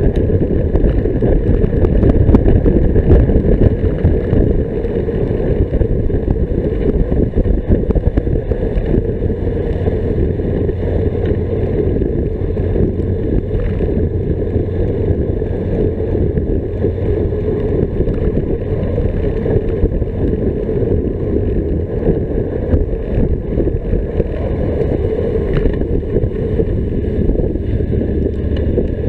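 Wind rushing over the microphone of a camera on a moving bicycle: a loud, steady, low rumble of noise with no clear engine note.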